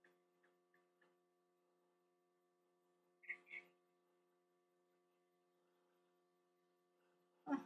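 Near silence with a faint steady electrical hum. Two brief faint sounds come about three seconds in, and a voice starts just at the end.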